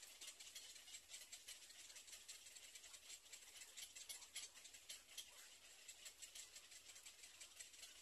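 Near silence: a faint high hiss with many scattered light ticks.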